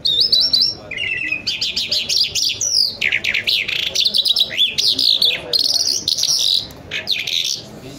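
Caged lark, called an Irani jal, singing a fast, varied song of high trills, chirps and quick rising and falling whistles in short phrases with brief gaps. The song stops near the end.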